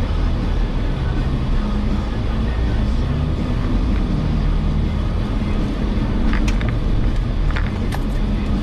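Jeep Wrangler engine running steadily at low speed while crawling off-road, heard from inside the cabin as a constant low drone, with a few sharp clicks and knocks from the body or drivetrain about six and a half and seven and a half seconds in.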